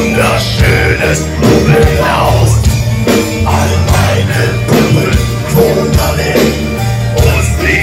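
Dark metal band playing live at full volume: amplified guitars, bass and drums, with gliding melodic lines over a heavy low end, heard from among the crowd.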